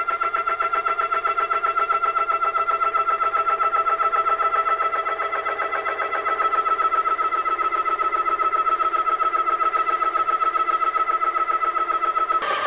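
Umarex ReadyAir portable PCP air compressor starting up and running, with its pitch just settling after spin-up into a steady whine and a fast, even pulsing beat from the pump. A little before the end the sound shifts slightly lower and harsher.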